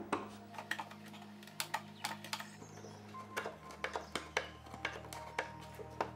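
Steel nail puller clicking and scraping against wood as its jaws bite under and pry out small nails, in short irregular clicks, several a second at times. Faint background music underneath.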